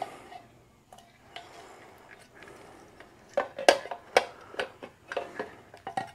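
Light handling clicks and knocks of a round LED headlamp being worked into a motorcycle's headlight bucket, with a run of sharper taps in the second half.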